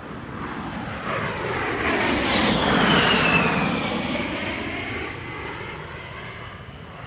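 Aircraft fly-by sound effect: rushing engine noise swells to a peak about three seconds in and fades away, with a high whine falling in pitch as it passes.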